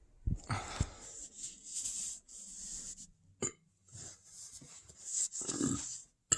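A person burping, once just after the start and again about five seconds in, with breathy hiss between and a short click about three and a half seconds in.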